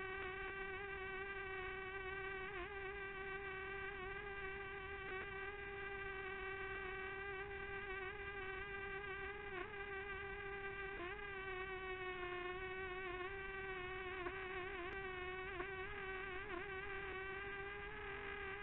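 Quadcopter drone's motors and propellers making a steady buzzing whine. The pitch dips and wobbles repeatedly, more often in the second half, as the motor speeds shift to hold the drone against strong, gusty wind.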